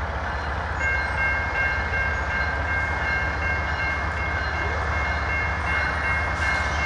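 Three GE diesel-electric locomotives approaching under power, their engines giving a steady low drone over the rumble of the train. From about a second in, a locomotive air horn is held as one long, steady, multi-note chord.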